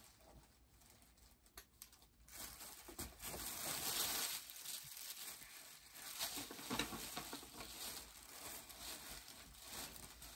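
A shopping bag crinkling and rustling in uneven bursts as it is rummaged through by hand, starting about two seconds in.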